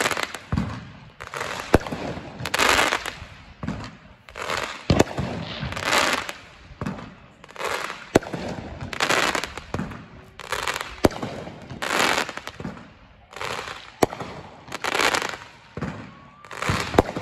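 Aerial fireworks going off in quick succession, about one a second. Each is a sharp bang or a spell of crackling as the glittering stars burst.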